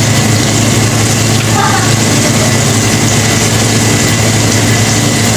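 Chicken deep-frying in a wok of hot oil, sizzling steadily, under a loud, steady low hum like an idling engine or burner.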